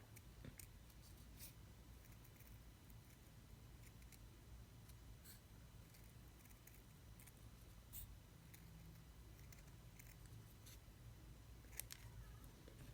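Faint, scattered clicks and scratches of an X-Acto craft knife blade cutting through thin printed paper.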